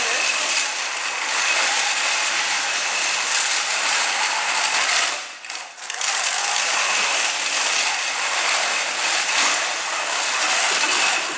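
A robot's mecanum-wheel drive base running on carpet: a steady mechanical whir from its drive motors, gearboxes and wheel rollers, with a faint steady whine. It cuts out briefly about five seconds in, then starts again.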